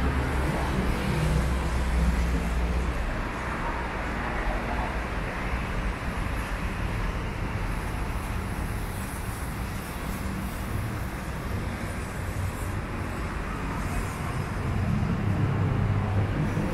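Road traffic noise: a steady hum of passing cars, with louder vehicle rumbles in the first few seconds and again near the end.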